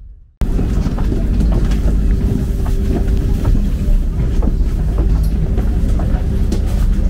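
Loud steady vehicle rumble with a low drone, a steady hum and scattered clicks and knocks, cutting in abruptly about half a second in.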